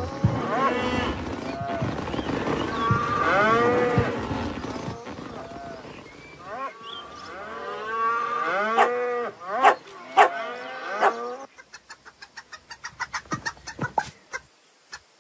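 Cartoon cows mooing, many calls overlapping, each one arching up and down in pitch, breaking off about eleven seconds in. A quick run of light ticks follows near the end.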